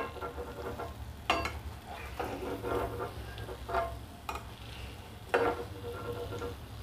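Perforated stainless-steel slotted spoon knocking and scraping against a kadai while fried puris are lifted out of hot oil, several sharp clinks with a short ring, over a faint sizzle of frying oil. A low steady hum runs underneath.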